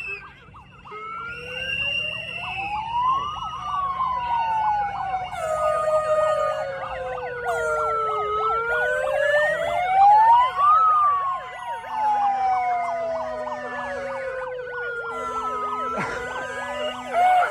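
Sirens sounding together. The loudest is a slow wail that rises and falls twice, and faster yelping tones and steady two-tone notes overlap it.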